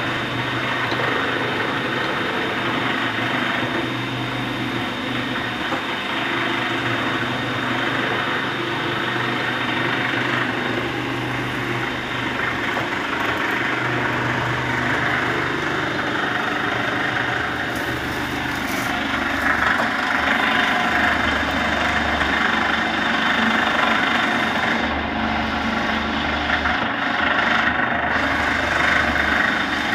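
Water filter cap making machine running: its electric geared motor and drive humming steadily, with a thin high whine over the hum.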